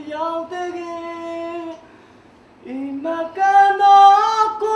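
A man singing a Burmese song unaccompanied in a high voice, holding long notes. He breaks off briefly about two seconds in, then comes back louder on higher held notes.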